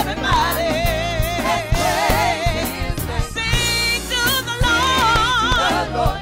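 Live gospel song: a woman sings the lead line into a handheld microphone with a wide, wavering vibrato, over a full band accompaniment with a steady beat.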